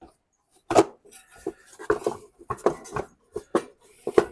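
Irregular metal clinks and knocks, about nine of them, as parts are handled and fitted back onto a small riding-mower engine during reassembly.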